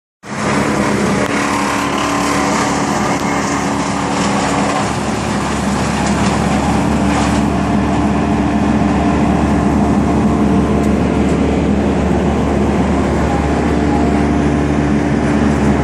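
Large engine of heavy machinery running steadily at a constant speed, with a steady low hum and no revving.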